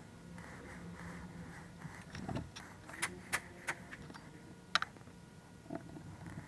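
Light clicks and taps of small parts being handled on a workbench, with a few sharper clicks between about three and five seconds in, over a faint steady hum.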